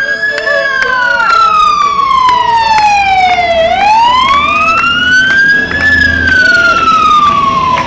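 Emergency vehicle siren wailing close by, its pitch sliding slowly down, back up and down again.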